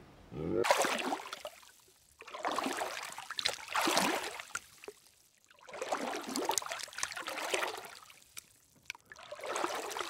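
Shallow pool water splashing and sloshing in about four swells, each one to three seconds long, with short quiet gaps between them.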